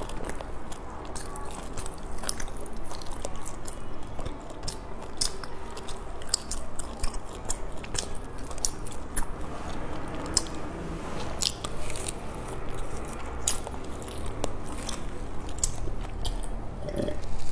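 Close-miked eating: wet chewing with many small mouth clicks and lip smacks of a soft, sticky green glutinous rice cake (qingtuan) filled with salted egg yolk and pork floss. Near the end come gulps from a drink.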